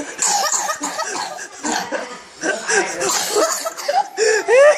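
Coughing mixed with laughter: a rapid run of short voiced bursts that rise and fall in pitch. The loudest and highest comes near the end.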